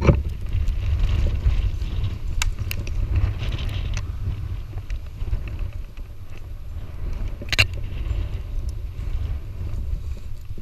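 Strong gusting wind buffeting the microphone as a steady low rumble, with a few sharp clicks, the loudest about seven and a half seconds in.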